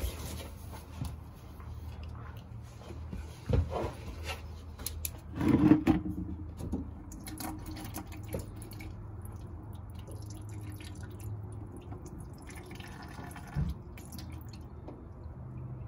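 Old diesel fuel draining from a VW Rabbit pickup's fuel tank and dripping into a plastic bucket, with a few knocks as the drain line is handled, the loudest about six seconds in.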